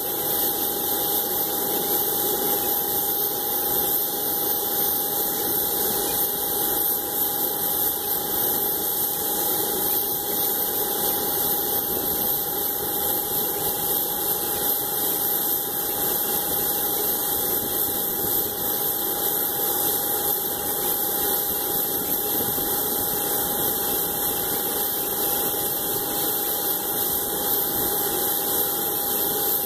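Aircraft jet turbines idling: a steady rush with a constant whine held over it, its level unchanging throughout.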